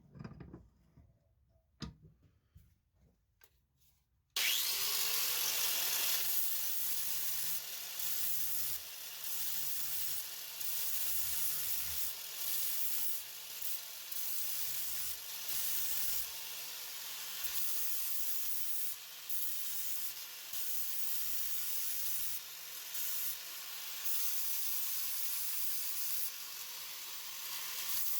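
A few light knocks, then an aerosol spray-paint can starts spraying about four seconds in: a loud hiss that runs on in bursts, briefly letting up and starting again.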